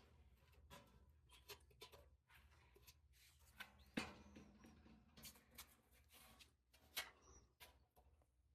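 Faint scattered clicks, taps and light scraping of parts being handled, with a sharper knock about four seconds in and another about seven seconds in.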